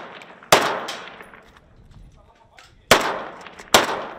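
AK-pattern assault rifle fired in single shots, three in all, each crack followed by an echoing tail that dies away over about a second.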